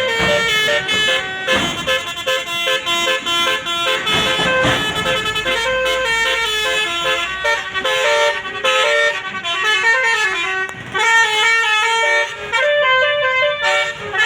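A bus's Basuri multi-tone musical air horn playing a 'telolet' tune: a fast run of stepping horn notes, with a brief break a little past ten seconds in.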